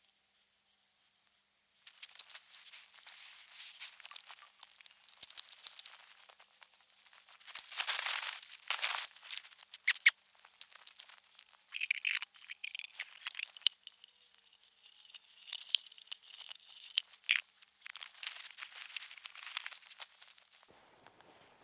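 Wood fire crackling and popping in a small twig-burning stove, with dense irregular snaps starting about two seconds in and stopping just before the end. A faint hiss rises from the kettle partway through; it has only surface bubbles and is not yet boiling.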